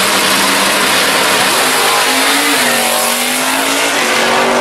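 Drag-race cars, including a 1968 Pontiac GTO drag car, accelerating hard down the strip at full throttle. The engine pitch climbs, dips about halfway through as it shifts gear, then climbs again under a dense, loud roar.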